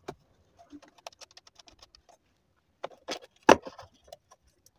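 Light clicks and taps of hands and a tool working on the opened home theater's amplifier board, a quick run of small ticks followed by a few sharper knocks about three seconds in, the loudest at about three and a half seconds.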